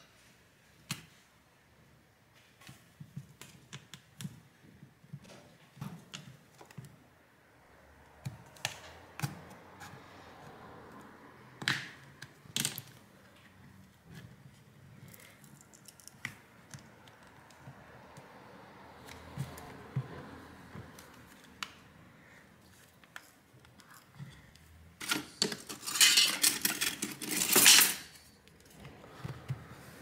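Scattered clicks, taps and scrapes of a smartphone's plastic back cover and frame being handled and pried apart. About 25 seconds in comes a louder stretch of scraping and crackling lasting a few seconds, as the cover is worked loose.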